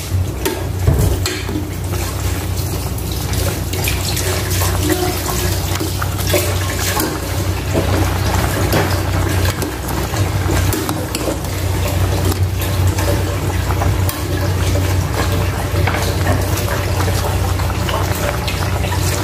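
Pot of vegetable stew boiling in an aluminium pot on a gas burner, bubbling steadily, stirred now and then with a metal ladle that gives small clinks.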